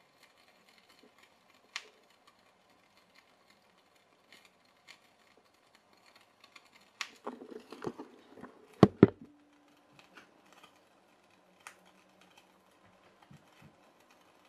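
Faint, irregular ticking from the triple-pipe CO2 capsule boiler of a homemade pop pop boat as it keeps running. A few louder knocks and clatters come about seven to nine seconds in.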